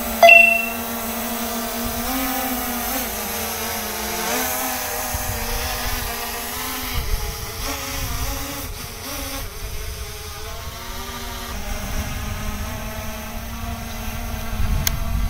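SJRC F22 quadcopter's propellers buzzing in flight, the pitch wavering as the motors correct against strong gusts. A short, loud beep sounds just after the start, and wind rumbles on the microphone near the end.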